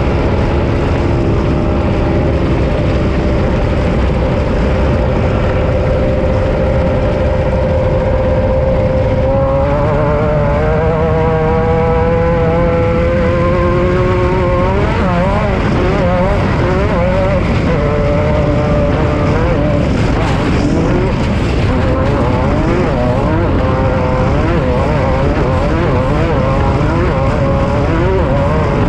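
Off-road race vehicle's engine running hard under a constant noisy rumble: its pitch holds steady, climbs about ten seconds in, then wavers rapidly up and down as the throttle and load change over rough ground.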